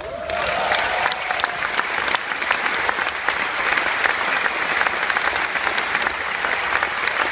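Audience applauding: clapping breaks out suddenly and stays steady and full.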